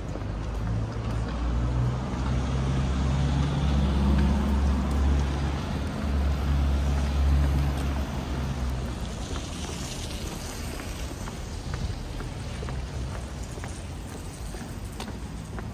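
A large motor vehicle's engine running low and loud as it passes close, strongest in the first half and fading after about eight seconds into steady street traffic noise.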